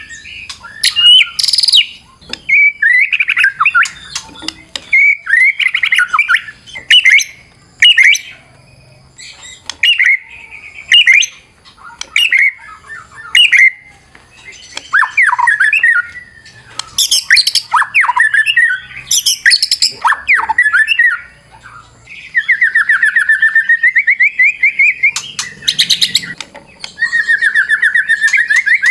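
White-rumped shama (murai batu) singing a varied song of loud whistled slides, harsh squawks and chattering phrases, including mimicked phrases of other birds. About three-quarters of the way through comes a long, rapid, buzzy trill, and another starts near the end.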